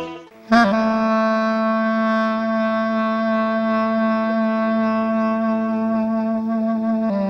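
A clarinet comes in about half a second in and holds one long, steady note for over six seconds, ending with a short ornament and a move to a new note.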